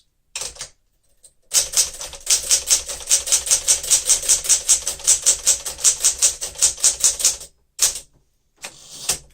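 Typing on a 1963 Smith-Corona Sterling manual typewriter: an even run of sharp key strikes, about five or six a second, for several seconds, then a pause, a single strike and a longer sound near the end.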